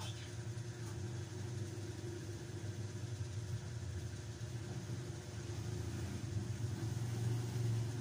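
Steady low drone of a running motor, without change in pitch or level.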